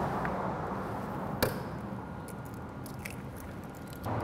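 Eggs being cracked into a clear mixer bowl: one sharp crack of shell about a second and a half in, then a few faint clicks.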